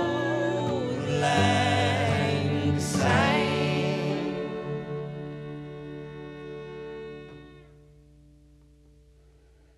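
Short outro jingle: singing over instruments, ending on a held chord that fades out over several seconds.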